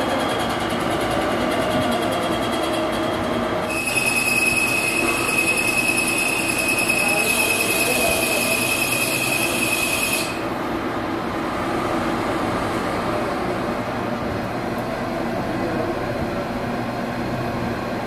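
Metal lathe running and cutting metal. About four seconds in, a high, steady squeal from the cutting tool on the turning workpiece starts, then cuts off suddenly about six seconds later, leaving the lathe's running noise.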